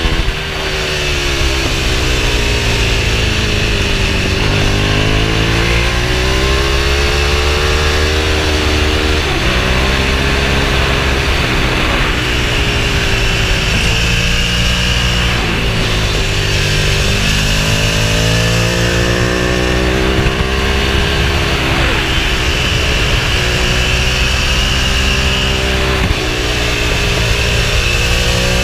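Ducati Streetfighter 1098's L-twin engine under way, its pitch climbing and dropping again and again as the bike accelerates and slows through a run of bends. A steady rush of wind runs under the engine.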